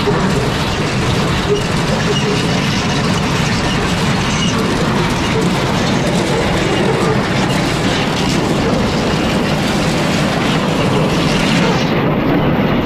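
Ear-corn elevator running: its chain and flights rattle and clatter steadily as they carry ears of corn up and drop them down the spout into the crib.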